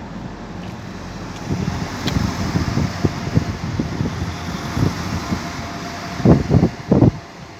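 Wind buffeting the microphone in irregular gusts, strongest twice near the end, over a steady rushing noise.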